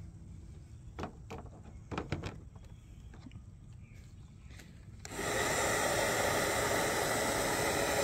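A few faint rustles and small clicks, then about five seconds in a battery-powered bubble gun switches on and its fan motor runs with a loud, steady noise.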